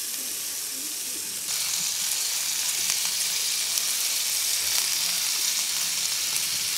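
Raw chicken breast pieces sizzling in hot oil in a stainless steel wok on a Cobb grill. The steady sizzle grows louder about a second and a half in, as more pieces are dropped into the pan.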